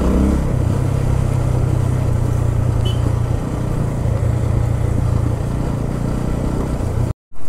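Motorcycle engine running steadily at an even pitch, with no revving. The sound breaks off abruptly for a moment near the end.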